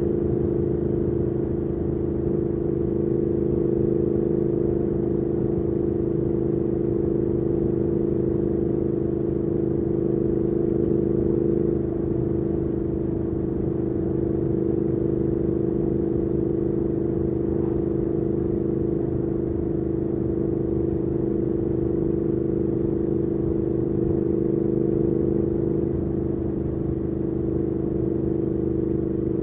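Triumph Speed Twin 1200's parallel-twin engine through a Weslake Shorty Pro exhaust, running steadily at an even pitch while riding, with only a slight change about twelve seconds in.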